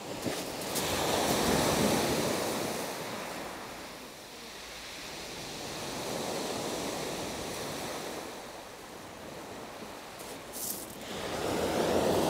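Small waves breaking and washing up a shingle beach, swelling and fading in surges about every five seconds.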